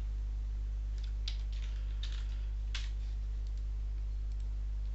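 A handful of faint, irregular clicks from a computer mouse and keyboard over a steady low hum.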